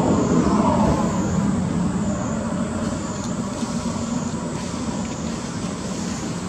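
Motor vehicle traffic: a steady rumble of engine and road noise, a little louder in the first second or so.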